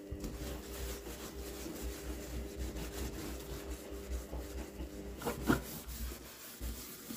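Damp microfibre cloth rubbing and scrubbing over a wet stainless steel sink and draining board, with a faint steady hum underneath. A brief louder squeak or knock comes about five seconds in.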